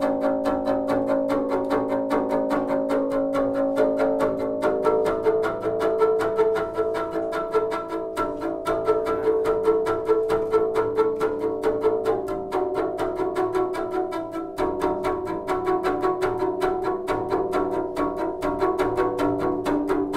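Solo double bass played with the bow in fast, even repeated strokes, holding a cluster of sustained high notes. The notes shift about five seconds in and again near fifteen seconds in.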